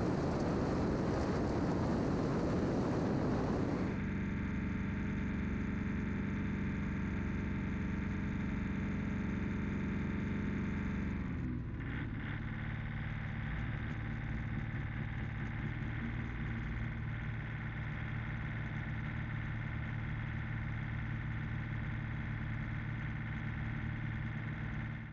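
The Velocity Twin's two DeltaHawk DHK180A jet-fuel diesel aircraft engines running at low power on the ground. A loud rushing for the first four seconds gives way to a steady engine hum, whose pitch steps down about twelve seconds in.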